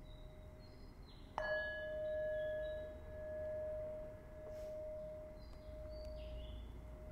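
A meditation bell struck once about a second and a half in, ringing on in one clear tone that swells and fades in slow pulses. A fainter ring from an earlier strike is already sounding before it.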